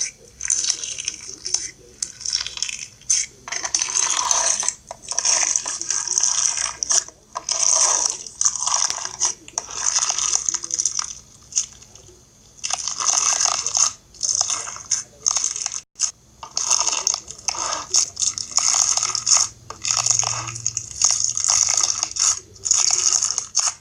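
Fishbowl slime, clear slime packed with small beads, being squeezed and pressed by hand, giving crisp crunching and crackling in irregular bursts with short pauses between.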